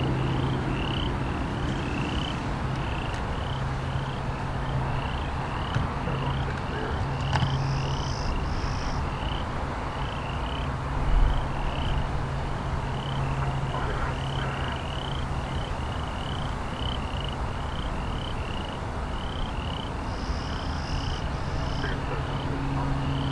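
Short rising chirps from a small animal, about two a second, repeat steadily over the low rumble of an airliner's jet engines on its takeoff roll.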